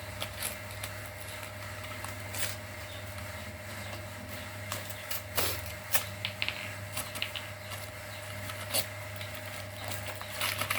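Scattered light clicks and taps of small hard objects being handled, over a steady low electrical hum.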